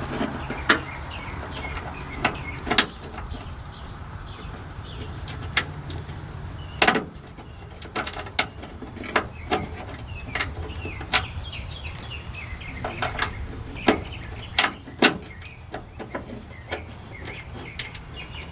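Irregular metallic clicks and knocks from hand tools and parts being worked into a pickup truck's door while a bolt is fitted. Under them a cricket chirps steadily, about two high pulses a second.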